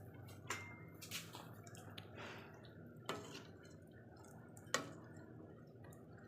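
Soft drips and plops of liquid in a cooking pan, five or so short clicks spread over a few seconds, the last the loudest, over a steady low hum.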